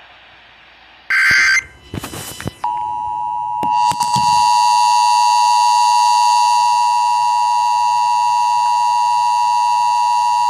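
Two short harsh bursts of data noise, the alert header, then from about two and a half seconds in the steady, loud two-tone Emergency Alert System attention signal near 1 kHz, held unchanged.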